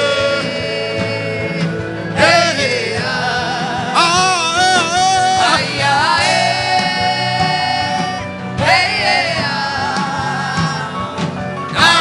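Worship music: a voice singing long phrases with wavering, held notes over a steady instrumental accompaniment. A new phrase begins about every two seconds.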